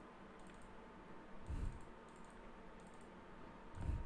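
Faint computer mouse and keyboard clicks, with two soft low thumps about one and a half and four seconds in, over a faint steady hum.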